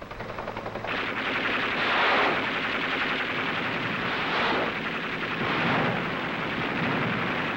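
Sustained rapid machine-gun fire from armed helicopter gunships, starting about a second in and swelling louder every second or two.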